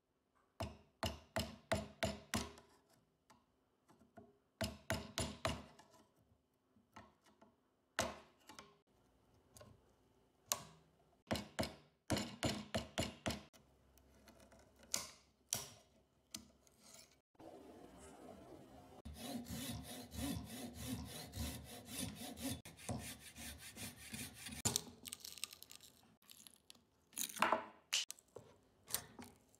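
A steel chisel and prying tool working an old screwdriver's wooden handle and metal ferrule: bursts of quick sharp knocks and cracks of splitting wood, then several seconds of rapid scraping past the middle, and more knocks near the end.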